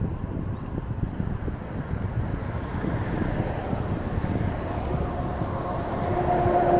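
Wind buffeting the microphone of a camera riding along on a bicycle, a steady low rumble that swells slightly near the end. About six seconds in, a short held tone with one overtone sounds for about half a second.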